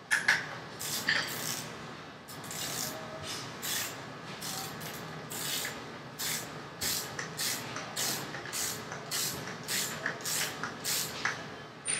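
Ratchet wrench clicking in short repeated strokes, about two a second, as a bicycle bottom bracket is tightened.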